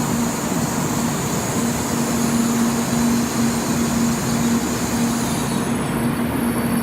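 Shinkansen train running at the platform: a loud, steady rush of running noise with a low hum that drops out briefly now and then.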